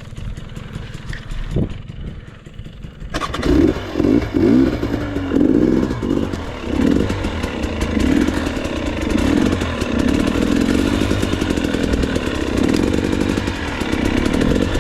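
Dirt bike engine, low and quiet for about three seconds, then suddenly much louder and revving up and down repeatedly as the bike is ridden over rough ground.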